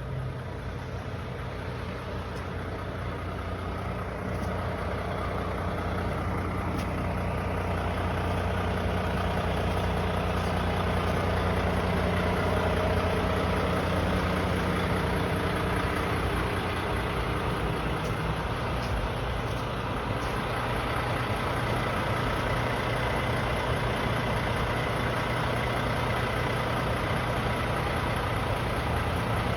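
A truck's engine idling steadily, a low, even hum that grows a little louder over the first dozen seconds and then holds.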